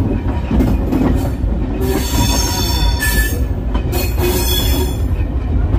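Railway carriage rolling along the track with a steady low rumble. It is cut by two stretches of high-pitched wheel squeal, about two and four seconds in.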